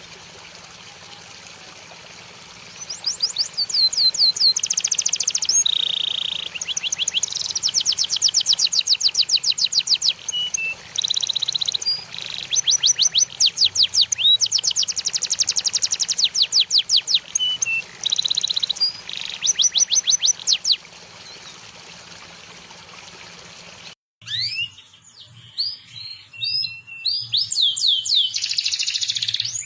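Songbird song: fast trills of repeated down-sweeping whistled notes alternating with held buzzy phrases, over a steady background hiss. About 24 s in, the hiss drops away and a second recording follows, with quick chirps and short trills.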